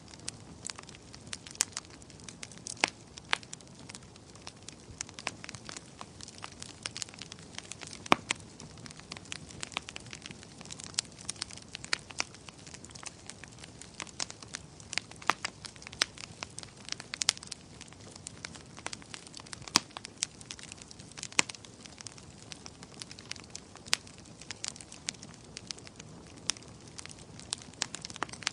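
Bonfire burning: a low steady rush of flames with frequent irregular crackles and pops of burning wood.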